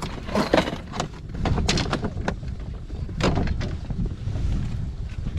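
Wind buffeting the microphone in a steady low rumble, with a few short knocks.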